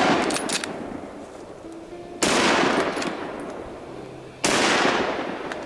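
Hunting rifle shots echoing through forest. Two sharp reports come about two seconds apart, each followed by a long rolling echo that fades over a second or more. At the start, the echo of an earlier shot is dying away.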